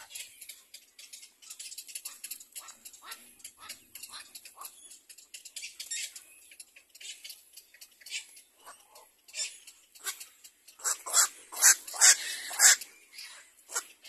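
Little black cormorant chicks calling from the nest: a rapid run of short, high squeaky calls, several a second, with a louder run of calls about eleven seconds in.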